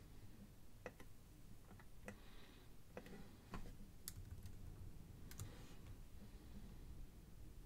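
Faint, sparse computer mouse clicks, about eight sharp clicks at irregular intervals, over a low steady room hum.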